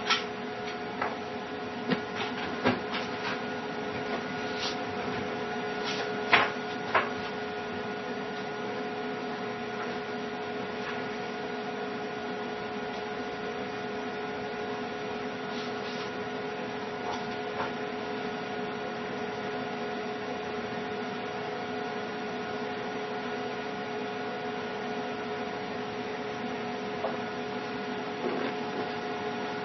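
Steady electrical or machine hum holding several fixed tones. A few sharp clicks come in the first several seconds and again near the end.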